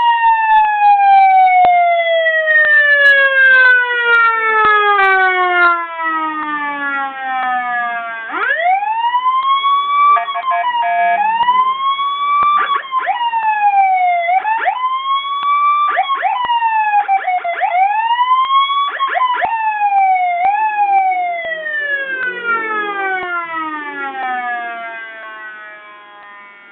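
Custom nine-tone electronic vehicle siren running through its patterns: a long tone falling slowly in pitch, then a wail that rises and falls about every three seconds, then a final long falling tone that fades away near the end.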